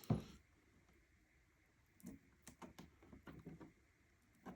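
Quiet handling of a cardboard cable box being opened: a soft knock about the start, then a run of small clicks and rustles a couple of seconds in, and one more click near the end.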